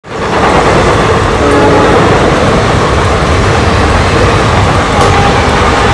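Express train running through at speed: a loud, steady rumble and rattle of wheels and coaches on the rails.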